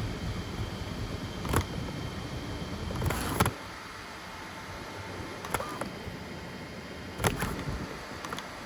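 FDM 3D printer at work: stepper motors whirring through short moves over a steady hiss, with several sharp clicks and brief louder bursts along the way.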